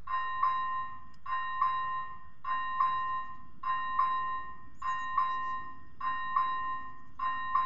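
Czech level-crossing electronic warning bell ringing: one bell-like tone struck again just over once a second, sounding while the crossing's red light flashes to warn that a train is approaching.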